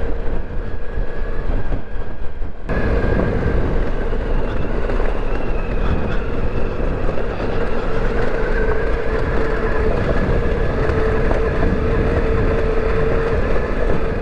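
Ducati Multistrada V4 Rally's V4 engine running steadily under way, with a held tone in its note, over a constant rush of wind and tyre noise on a loose rocky trail.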